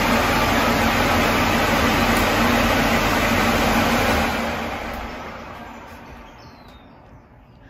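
Pop-up downdraft extractor fan running at speed, a steady rushing hum; about four seconds in it is switched off at its touch panel and winds down, fading over the next few seconds.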